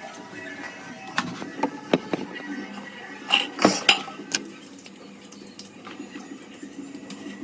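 Kitchen utensils knocking and clinking against pots and dishes during cooking, a run of separate sharp knocks between about one and four and a half seconds in.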